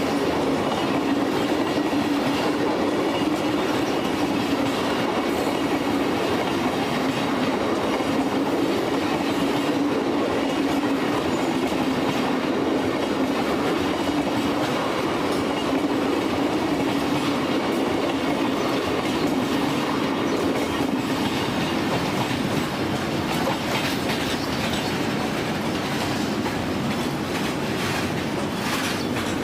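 Indian Railways express train running at speed, its wheels clattering over the rail joints, with a steady hum that fades about two-thirds of the way through.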